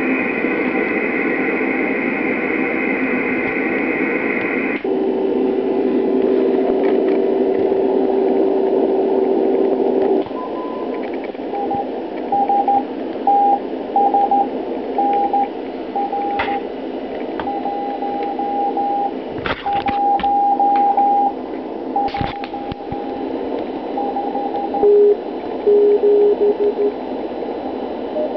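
G3020 software-defined radio receiver hissing with shortwave band noise. About five seconds in the hiss narrows to a CW filter and a steady carrier tone sounds. Then a Morse code (CW) signal keys on and off in a higher tone for several seconds, with a few short static crackles, and a second, lower-pitched Morse signal comes near the end.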